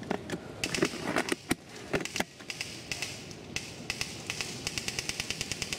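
Airsoft guns firing on full auto: a fast, even rattle of sharp cracks, about ten a second, running through the second half. Scattered clicks and knocks come before it.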